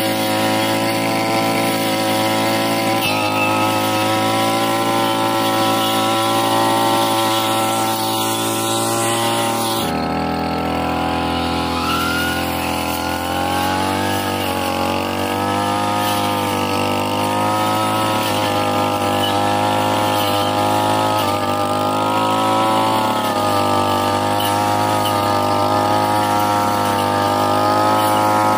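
Petrol brush cutter fitted with a toothed circular saw blade, engine running at high speed while cutting grass and woody saplings. The engine note shifts about ten seconds in and settles again a few seconds later.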